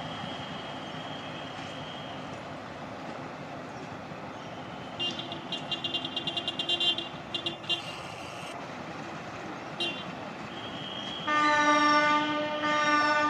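Railway locomotive horn sounding two loud blasts near the end. Earlier, about five seconds in, the moving train gives a couple of seconds of high squealing with rapid clicking. A steady rumble lies under it all.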